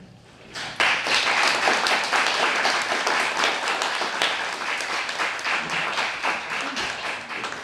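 Audience applauding, beginning suddenly about a second in and going on steadily.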